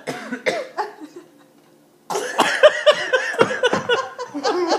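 A young child's fake coughing: a few short coughs at the start, a brief pause, then a longer run of repeated coughs from about two seconds in.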